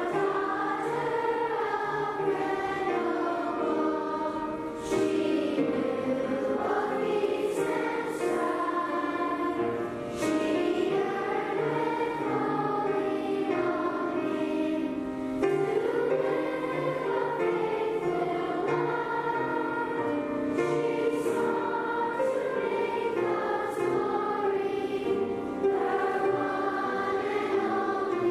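A choir singing a slow piece, the voices holding long notes in phrases of a few seconds each.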